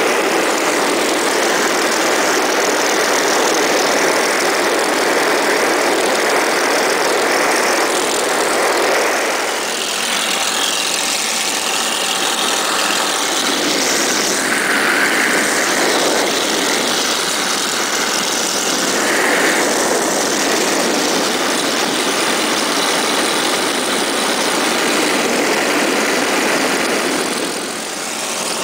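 Light aircraft's piston engine and rushing air heard from inside the cockpit in flight, a loud steady drone. Its tone shifts about ten seconds in, and the level dips briefly near the end.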